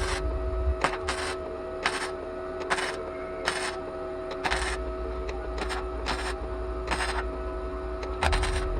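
Flux-core wire welder stitch-welding sheet-metal body panels: a dozen or so short crackling bursts of arc, each a fraction of a second, started and stopped under a second apart, over the welder's steady hum.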